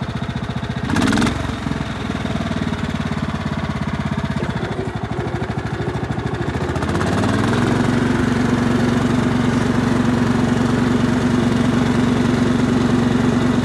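Craftsman riding lawn mower engine running steadily, then revving up about seven seconds in and holding at a higher steady speed. There is a brief noise about a second in.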